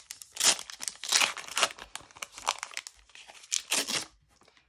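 The wrapper of a Panini Euro 2020 trading-card booster pack being torn open and crinkled by hand as the cards are pulled out: a quick run of rustles and tearing sounds that stops shortly before the end.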